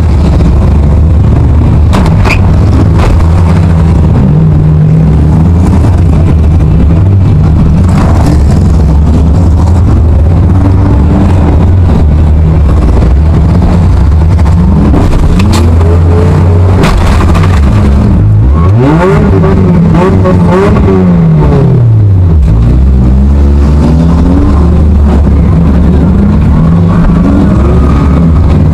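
Demolition derby car engines running loud from inside the Ford Taurus wagon's cabin, revving up and down repeatedly in the middle stretch, with several sharp crash impacts from car-to-car hits.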